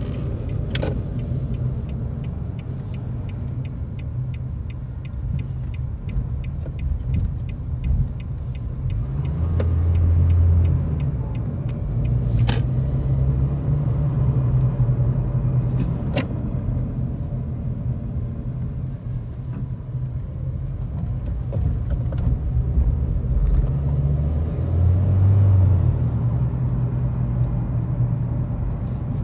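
Engine and road noise heard inside the cabin of a moving car: a steady low rumble that swells briefly twice, with three sharp clicks.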